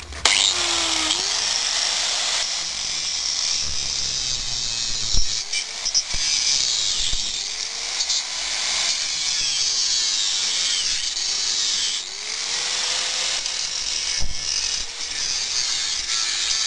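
Angle grinder starting up and cutting through a steel tube, a steady loud grinding hiss with the motor's pitch sagging and recovering several times as the disc is pressed into the cut and eased off.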